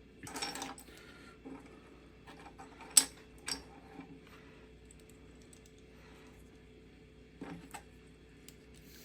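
Small plastic figure parts clicking and rustling as they are handled and fitted together, with a sharp click about three seconds in, another half a second later, and a few lighter clicks near the end.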